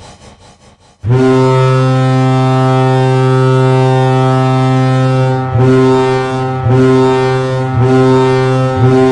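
NHL goal horn: a deep air horn sounding one long, steady blast from about a second in, dipping and restarting briefly four times near the end.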